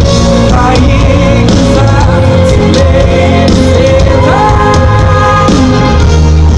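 Live band music through concert loudspeakers: a male singer with acoustic guitar and band. Loud throughout, the vocal line rises into a long held note about four seconds in.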